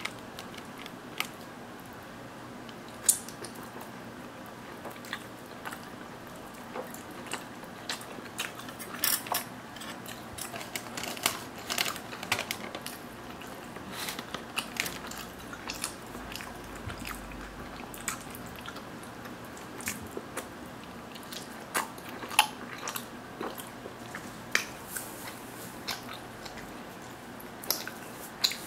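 Close-up eating sounds: chewing and biting crispy naan bread with mozzarella and tomato sauce, with irregular crunches and wet mouth clicks.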